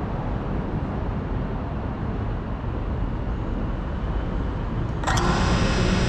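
Steady low rushing noise, then about five seconds in an FPV quadcopter's motors spin up to a louder whine made of several steady pitches.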